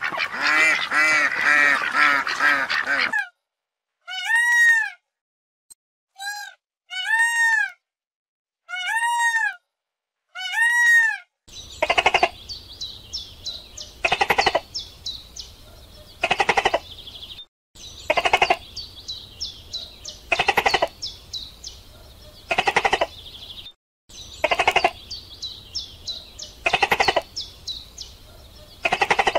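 Canada geese honking, a dense chatter of overlapping calls, then five single arched honks with pauses between. About halfway through a different sound takes over: a loud call repeating about every two seconds, with rapid high chirps in between.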